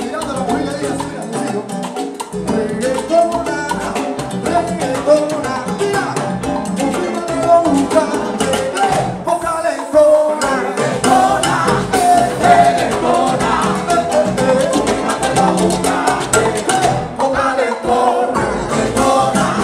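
Cuban timba dance music played by a band: a busy Latin percussion groove under keyboard and melody lines.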